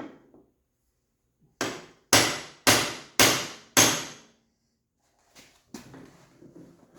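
A hammer strikes metal five times, about half a second apart, each blow ringing briefly. It is tapping out stuck pins from the upper frame of a Jeep soft-top door. Quieter handling noises follow near the end.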